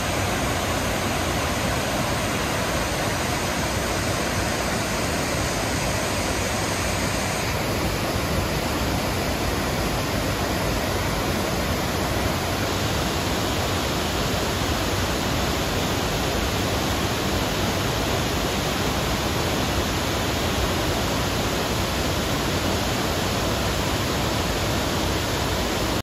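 Waterfall cascading over stepped rock ledges into a pool: a steady, even rush of falling water.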